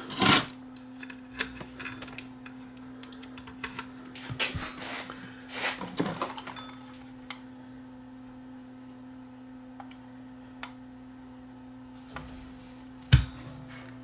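Scattered clicks and light clatter of equipment being handled and set up on a workbench, over a steady hum, with one sharper click near the end.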